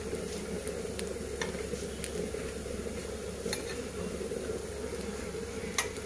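Kebab patties of dal and chicken shallow-frying in oil on an iron tawa, a steady sizzle, with a few light clicks of a spatula against the pan.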